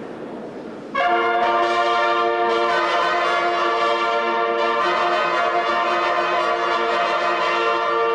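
Applause dies away, and about a second in brass music starts: a brass ensemble playing long held chords that move slowly from one to the next.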